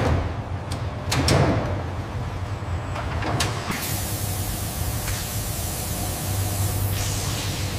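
A low, steady machine hum with several short pneumatic whooshes and clicks in the first few seconds. About four seconds in, a steady hiss of spray begins from a robotic arm misting a leather hide.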